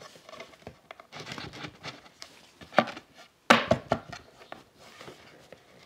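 Two white-faced cabinet board panels being handled and pushed together on wooden joining biscuits: light rubbing and tapping, with a sharp knock a little under three seconds in and a louder one about half a second later.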